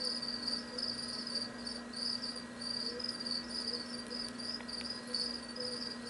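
Cricket chirping in an unbroken run of short trills, over a low steady hum.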